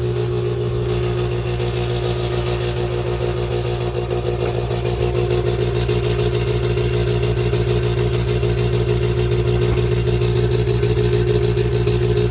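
Electric mixer running steadily, beating butter, sugar and egg for cookie dough, its motor giving a constant hum.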